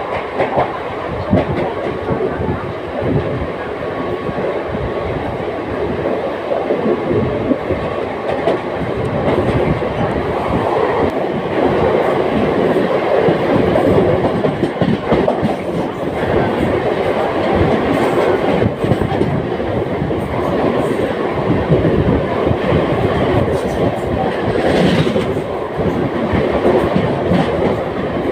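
Mumbai suburban electric local train running along the line, heard from inside a non-AC coach: a steady loud rumble with many short knocks from the wheels. A brief higher sound comes about 25 seconds in.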